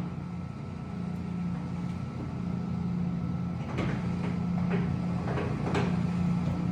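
American 16 x 78 style C engine lathe running with its spindle turning at 70 RPM, a steady low hum the speaker calls super quiet. A couple of short knocks sound past the middle.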